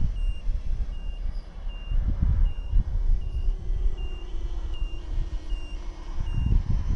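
A steady series of short, high electronic beeps, about one and a half a second, over a low rumble.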